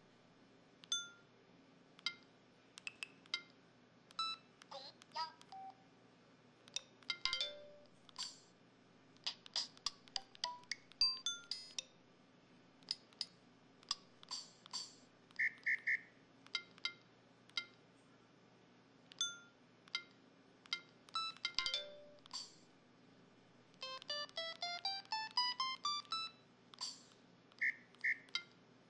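Built-in sound effects of a Samsung SCH-V330 mobile phone played one after another: short electronic beeps and chimes with pauses between them, two brief warbling trills, and a quick rising run of notes near the end.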